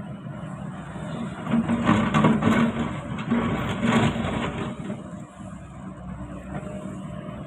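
Hitachi ZX excavator's diesel engine running steadily, getting louder for about three seconds from around a second and a half in, then settling back.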